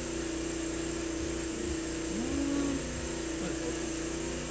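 Ferrex 3300 W petrol inverter generator's engine running steadily under a heavy load of about 2 kilowatts from an electric kettle, a load the owner says it is "not loving". A brief rising tone comes in about two seconds in.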